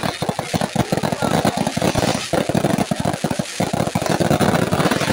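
Fireworks display going off: a loud, dense, rapid crackle of many small bangs with no break, from ground fountains and aerial shells throwing sparks.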